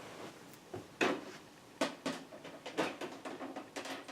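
A string of light clicks and taps from handling the computer hardware being assembled, the sharpest about a second in and a quick run of smaller ones in the last second or so.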